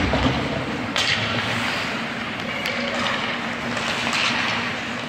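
Youth ice hockey play in an indoor rink: skates scraping the ice under a steady hubbub, with a sharp clack of stick on puck about a second in and a lighter one a little before the three-second mark.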